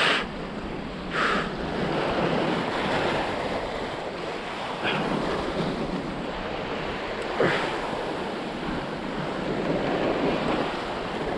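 Sea waves washing and sloshing against a kelp-covered rock ledge, with wind buffeting the microphone. A few short louder surges stand out about a second in, at about five seconds and at about seven and a half seconds.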